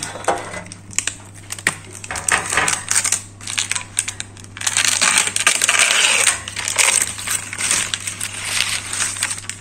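Baking parchment crinkling and rustling as it is handled and peeled off a freshly baked rye loaf being lifted out of a metal loaf tin, with light knocks and clicks among the crackle; it is busiest about halfway through.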